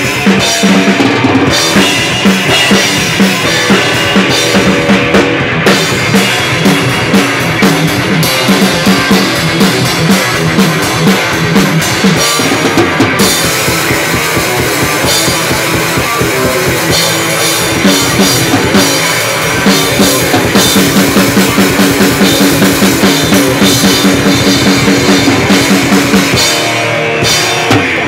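A thrashcore band playing loudly at rehearsal: electric guitar over a drum kit beating a fast, even rhythm, with the drums dropping out for about a second near the end.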